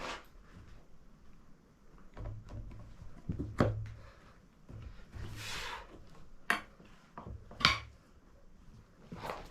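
Tyre levers knocking and scraping against the wheel rim as the last of a motorcycle tyre's bead is worked on: sharp clacks a few seconds apart, with a short scraping rush between them.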